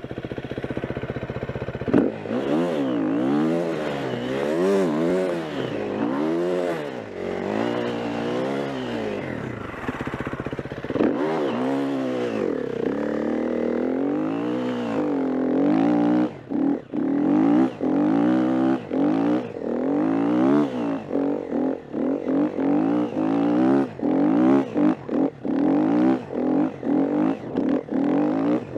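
KTM 350 EXC-F's single-cylinder four-stroke engine working hard in deep snow, its revs rising and falling about once a second. From about halfway through, the throttle is opened and shut in quick, choppy stabs, the engine note dropping away between them.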